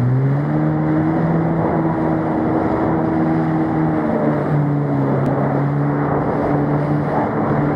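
Jet ski engine running steadily at speed, with water rushing and spraying off the hull. The engine's pitch dips slightly about four seconds in.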